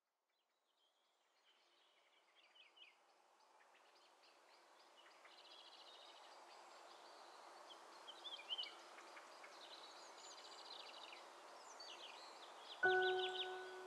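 Outdoor ambience fading up from silence: birds chirping and trilling over a faint steady hum. Near the end a single ringing mallet-percussion note sounds suddenly and holds.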